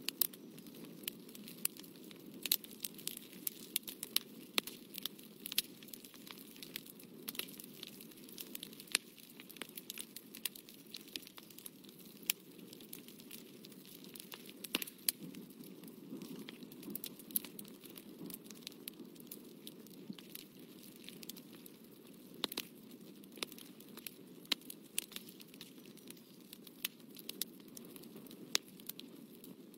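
Close handling noise from paper, fabric and drawing tools: irregular small clicks and crinkles over a steady low hum.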